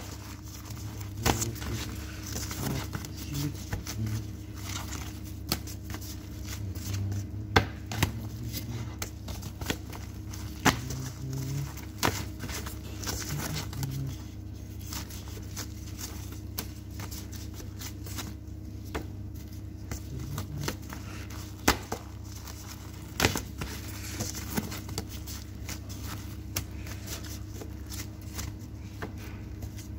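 Bamboo sushi-rolling mat being pressed and handled around a maki roll: scattered soft clicks and taps, a few sharper ones, over a steady low hum.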